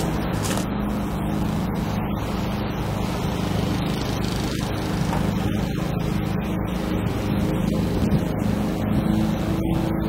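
A motor running steadily at a construction site, a constant low engine drone without changes in speed.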